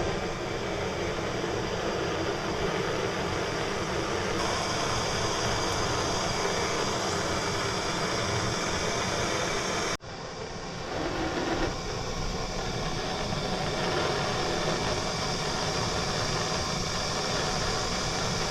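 Steady hiss of a soldering torch flame heating copper pipe joints. It breaks off sharply about ten seconds in and resumes at once.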